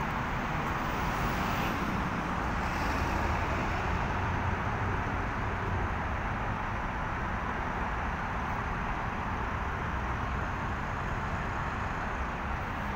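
Steady traffic noise from a busy city road: a continuous hum of car engines and tyres with no single vehicle standing out.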